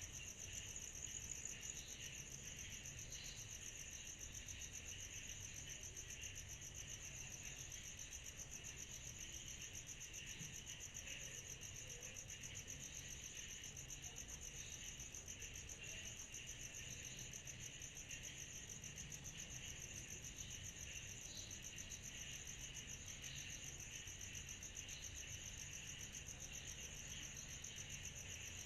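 Night insect chorus: a steady, high, rapidly pulsing trill with a lower, grainier buzz beneath it.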